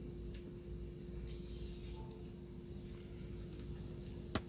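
Steady low hum in a parked car's cabin with a continuous high-pitched trill over it, and a single sharp click near the end.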